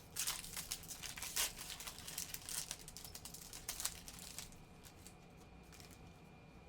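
Foil wrapper of a baseball card pack crinkling and crackling as it is handled and opened. The crackling is dense for about four and a half seconds, then dies down.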